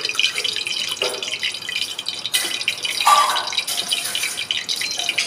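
A steel spoon stirring a wet gram-flour batter in a steel bowl, scraping and clinking against the sides, as water is added a little at a time.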